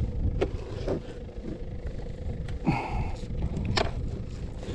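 Wind rumbling on the microphone, with a few short, sharp clicks and knocks from handling a caught black drum in the kayak.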